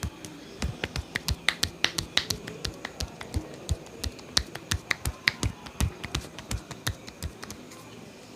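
Rapid series of sharp hand claps and slaps from a percussive head massage, several a second in an uneven rhythm, stopping shortly before the end.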